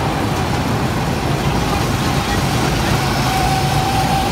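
Go-kart engines running steadily on the track: a continuous low drone with a higher whine over it that grows louder near the end.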